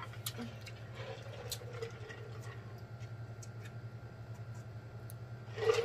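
Faint mouth noises of eating and drinking, with small clicks and smacks scattered throughout, over a steady low hum. A short, louder mouth or breath sound comes near the end.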